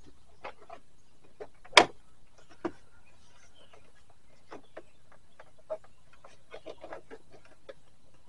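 Door trim panel on a GMC Sierra being pressed back onto the door, its retaining clips snapping in: scattered light clicks and knocks, with one sharp loud knock about two seconds in and a smaller one a second later.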